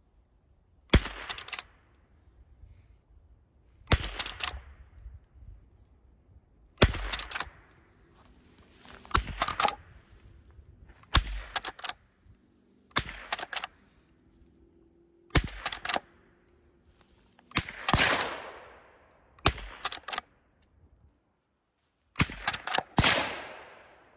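Lever-action rifle fired about ten times at an even pace, roughly one shot every two to three seconds. Each shot is followed by a quick clack of the lever being worked to chamber the next round.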